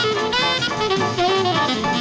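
Jazz background music, led by a saxophone with brass, a lively run of short notes.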